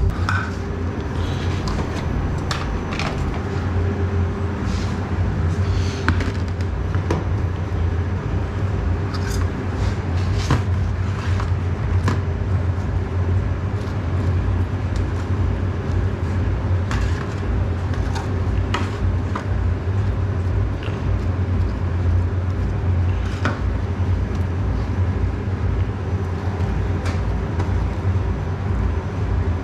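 A steady low machine hum, with scattered light knocks and clicks as a blade and hands work long sub sandwiches on a stainless steel counter.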